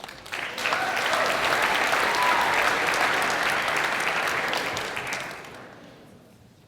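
Audience in a hall applauding. The clapping builds quickly, holds for about five seconds, then dies away near the end.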